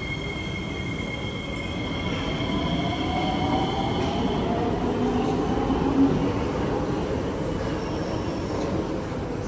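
Kawasaki C151A metro train departing, its traction motors whining upward in pitch as it gathers speed over a steady wheel-on-rail rumble, with a brief knock about six seconds in.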